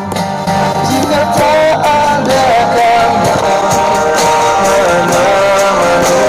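A pop song with a singing voice, guitar and a steady drum beat, played loud through a Polytron speaker under test.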